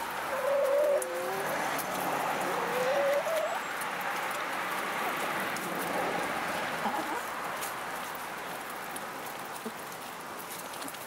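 Hens pecking and scratching through a compost pile of dry leaves and grain, a steady rustle with small ticks. A hen gives two short, low calls in the first few seconds, the second one rising.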